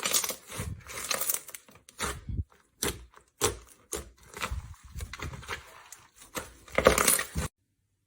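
Slime being squeezed and pressed, giving an irregular run of crackling, popping clicks with short pauses between them, then cutting off suddenly near the end.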